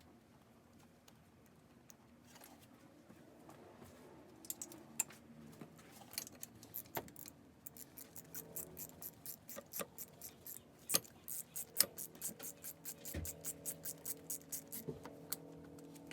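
Ratchet wrench clicking in quick strokes, sparse at first, then fast and steady from about halfway through, over faint background music.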